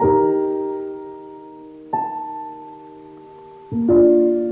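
Background piano music: slow chords struck about every two seconds, each left to ring and fade.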